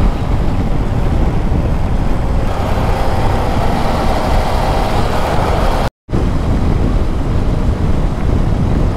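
KTM 250 Adventure single-cylinder motorcycle on the move: steady engine and road noise under heavy wind rush on a helmet-mounted microphone. The sound cuts out for a split second about six seconds in.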